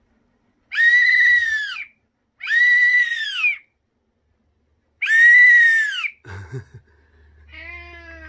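Small plastic emergency whistle, the kind clipped to a disaster helmet, blown three times in short, loud, shrill blasts about a second each. Each blast bends slightly downward in pitch as it ends.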